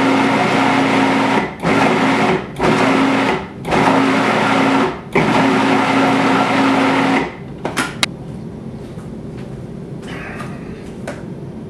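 Electric countertop food processor blending a thick avocado chocolate pudding mixture in pulses: it runs with a steady motor hum, cuts out briefly four times, and is switched off about seven seconds in. A couple of faint clicks follow.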